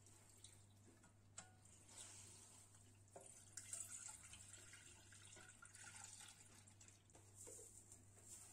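Orange juice poured from a glass jug into a nonstick saucepan: a faint, splashing pour that runs for several seconds and is loudest about four seconds in, after a light knock near the start.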